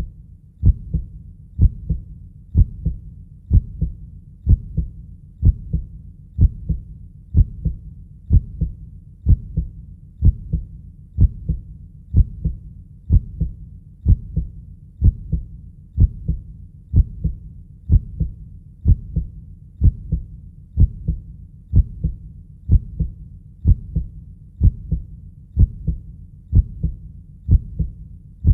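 A steady, slow heartbeat, each beat a muffled double thump (lub-dub), repeating evenly about once a second.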